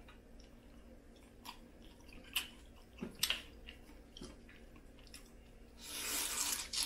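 Eating Cajun-style crawfish: scattered small cracks and clicks of shells being broken and peeled, with chewing, and a noisy stretch about a second long near the end.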